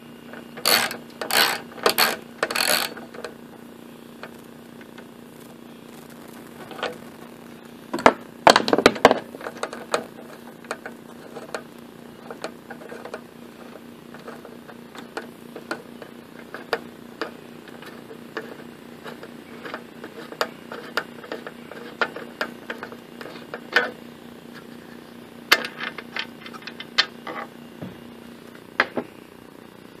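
Socket ratchet clicking in short runs while bolts holding the carburetor and fuel tank are loosened on a Briggs & Stratton lawn mower engine, with the clink and knock of the tool against the metal between runs. Four quick bursts come near the start and a louder cluster a third of the way in.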